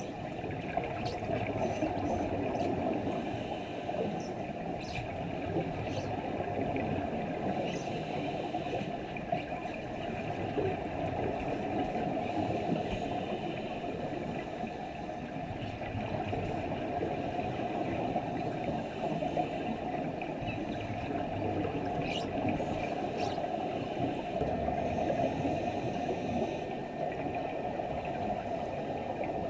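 Steady, muffled underwater noise in a diving pool, picked up by a submerged camera, with a few faint clicks.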